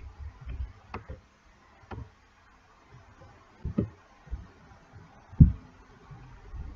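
Faint scattered clicks and low thumps of handling noise at a computer desk, with one louder low thump near the end.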